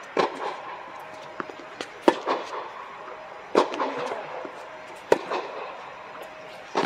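Tennis ball struck by racquets in a baseline rally: a sharp pop about every one and a half seconds, five in all, each echoing under the indoor air-dome roof.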